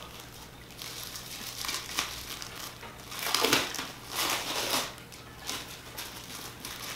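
Clear plastic wrapping crinkling as it is pulled and peeled off a large flat package, in irregular bursts, the loudest about three and a half seconds in.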